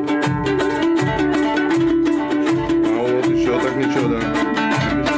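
A plucked string instrument strummed rapidly in a fast, even run of strokes, playing a melody over a steady held note.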